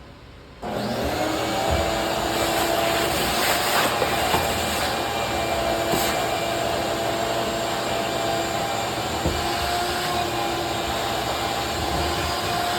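Shop vacuum switched on about half a second in, its motor spinning up and then running steadily as it sucks sawdust off the work.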